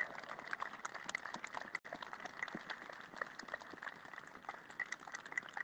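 Scattered applause from a small crowd: sparse, irregular hand claps, heard one by one rather than as a dense roar.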